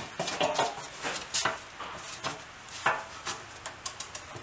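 A steel tucking fork twisting and scraping on the edge of a sheet-metal panel, with the panel flexing and knocking on a wooden stump: irregular clinks and scrapes. The edge is being folded into tucks so that it can be shrunk.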